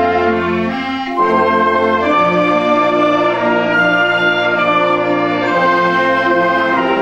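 Youth concert wind band playing, with brass to the fore in held chords that change every second or so. There is a slight dip and a fresh full entry about a second in.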